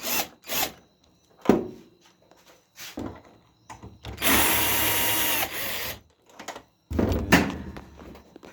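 Power drill running in a short burst of about a second, its motor whine winding down as the trigger is released, with sharp knocks of handling parts and tools just before and after.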